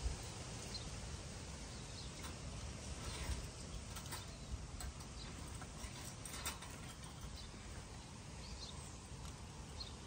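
Light metallic clicks and rattles of a wire bird cage as a goldfinch is put inside. There are a few sharp clicks around the middle, over faint outdoor background noise and a few faint, short high bird chirps.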